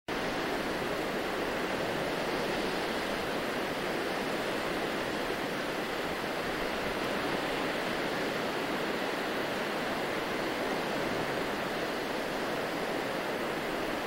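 Ocean surf from small waves washing up a sandy shore, heard as a steady, even hiss with no separate breakers standing out.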